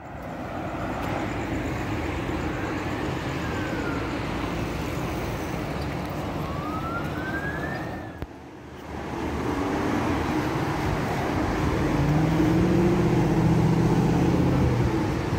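Street traffic: steady road noise of passing cars, with two faint rising-and-falling whines about 3 and 7 seconds in, and a louder low engine hum in the second half.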